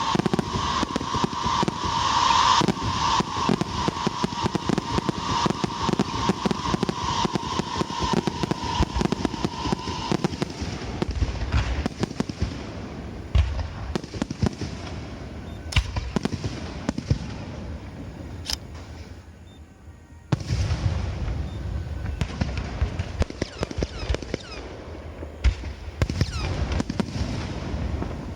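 Aerial fireworks going off: dense crackling and bangs, with a steady high whistle over the first ten seconds or so. The bursts thin out to a brief lull just before 20 seconds, then deeper booms and crackle pick up again.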